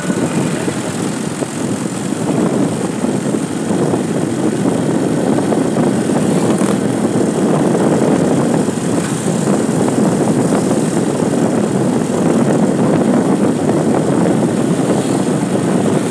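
Steady rush of wind on the microphone mixed with engine and tyre noise from riding at speed along a paved road.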